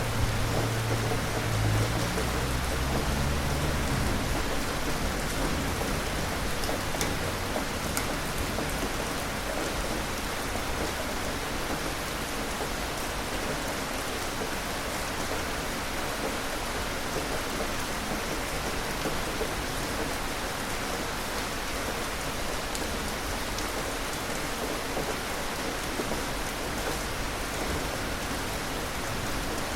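Steady, heavy rain falling on surfaces, with a low roll of thunder fading out over the first few seconds.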